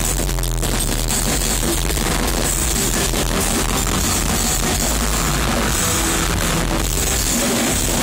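Black metal band playing live: electric guitars and a full drum kit, loud and dense without a break.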